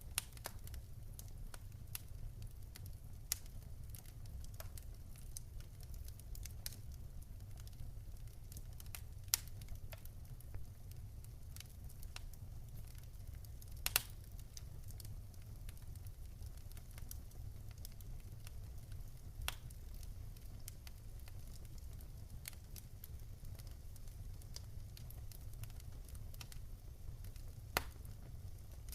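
Campfire crackling: irregular sharp pops and snaps over a steady low rumble, with one louder pop about halfway through.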